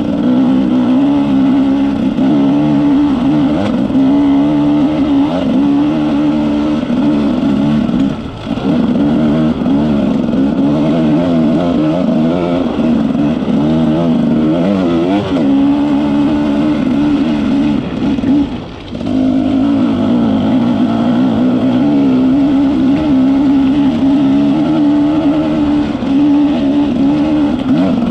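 Off-road vehicle engine pulling up a loose, rocky track, its note rising and falling with the throttle. It drops off briefly twice, about a third and two-thirds of the way through, as the throttle is closed.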